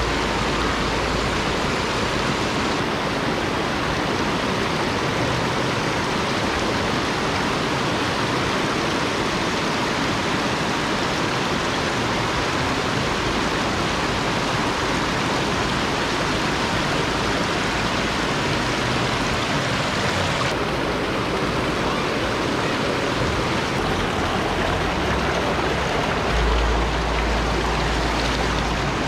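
Shallow, rocky mountain river rushing steadily over boulders and small rapids, with a brief low rumble near the end.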